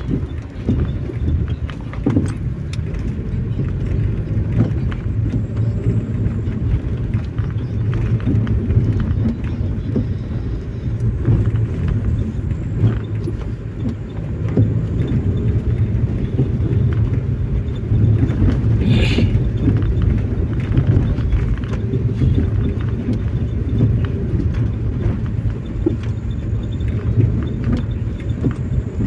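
Road noise inside a moving car: a steady low rumble of tyres and engine with scattered light ticks. A brief, sharper sound comes about two-thirds of the way through.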